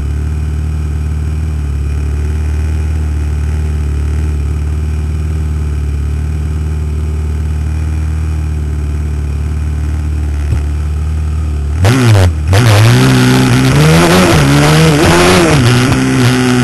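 Mini supermoto motorcycle engines idling steadily on the start grid, then revving hard about twelve seconds in as the race starts, the pitch climbing and dropping again and again through the gear changes, with rushing noise over it.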